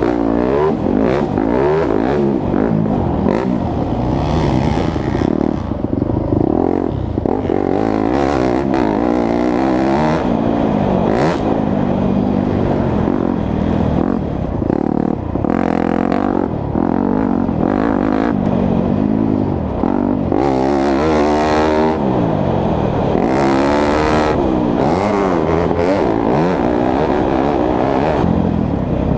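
2017 Yamaha YZ250F's 250 cc four-stroke single-cylinder engine being ridden hard, its pitch rising and falling over and over as it revs up and shifts. There are a few short bursts of hiss about two-thirds of the way through.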